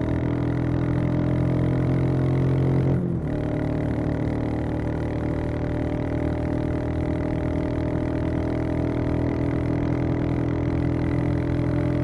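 Royal Enfield Classic 350's single-cylinder engine and exhaust running steadily on the move, its note rising slightly, then briefly breaking about three seconds in before carrying on steadily.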